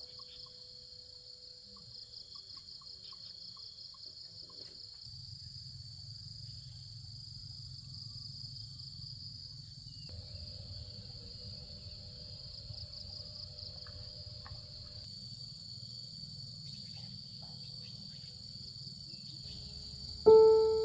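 Steady, high-pitched chorus of insects, a shrill pulsing trill, over a faint low rumble. Right at the end, music with piano notes comes in, much louder.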